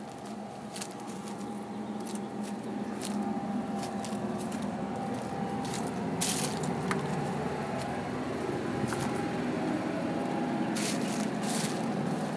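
Motorhome's onboard generator running with a steady hum that grows louder over the first half, with scattered crunching footsteps on the ground.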